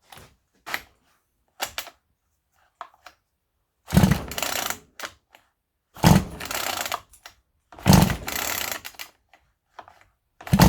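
Recoil starter of a cheap 37cc chainsaw pulled four times, about two seconds apart, cranking the engine over without it firing, as for a compression test that reads about 140. A few small clicks come before the first pull.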